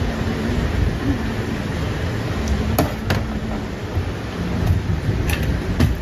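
Steady low rumbling workshop noise with a faint hum, broken by a few sharp clicks or knocks, two about halfway through and two near the end.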